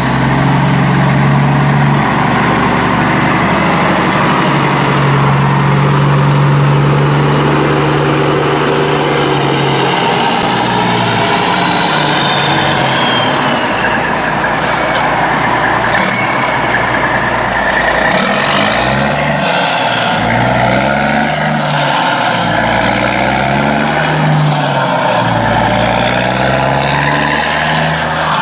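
Truck engine running, steady at first and then revving up and down repeatedly through the second half.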